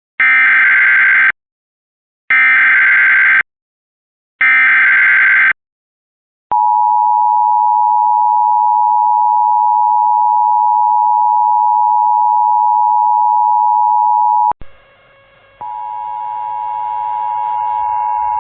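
Emergency Alert System tornado warning from an EMNet encoder: three bursts of shrill SAME header data, each about a second long, then the two-tone EAS attention signal held for about eight seconds and cut off sharply. About a second later a steady, layered musical tone begins.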